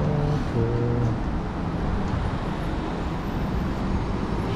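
Traffic passing on a city street: a double-decker bus drives by close at the start, then the steady noise of passing vehicles.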